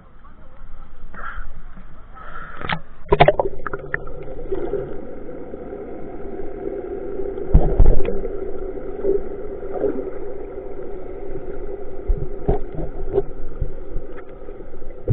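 A fishing boat's engine heard underwater as a steady hum with several held tones. It comes in after a splash-like onset about three seconds in, and there are a few dull thumps, the loudest about eight seconds in.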